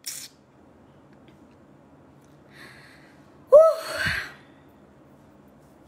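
A woman's breathing between words: a short breath out at the start, a faint breath about two and a half seconds in, then a brief voiced sigh with a breathy tail about three and a half seconds in.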